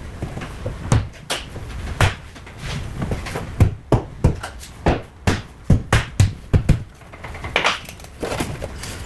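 A series of irregular sharp knocks and clicks, about a dozen, most closely spaced in the middle of the stretch.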